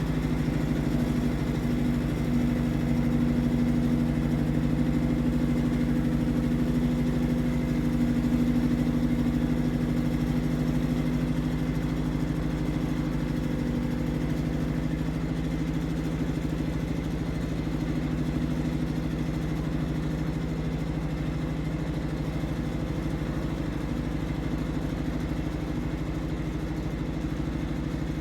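Iseki TX1300 compact tractor's engine running steadily at an even pitch while pulling a plough.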